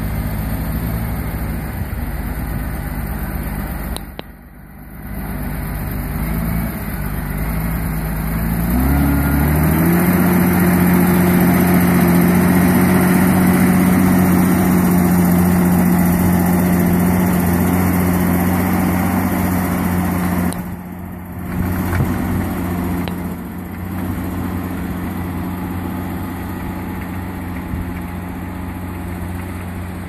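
Massey Ferguson 8450 tractor's six-cylinder diesel engine running steadily while pulling a plough. About nine seconds in its pitch climbs in steps, then holds at a higher engine speed. The sound briefly drops twice, near the start and about two-thirds of the way through.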